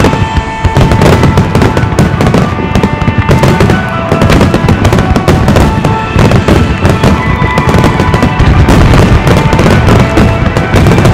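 Large fireworks display: many aerial shells bursting and crackling in rapid succession, with music playing along.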